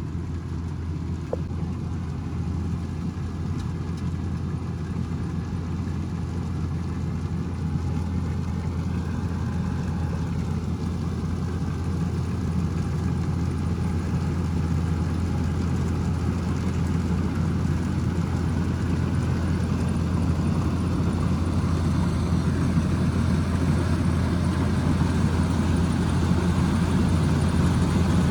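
Kubota DC105X combine harvester's diesel engine running steadily with a deep, even hum that slowly grows louder.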